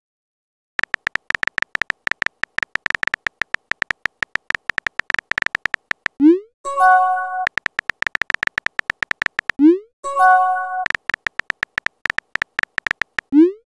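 Texting-app sound effects: fast runs of keyboard tapping clicks as a message is typed, broken twice by a quick rising swoop and a short multi-note chime as each message is sent.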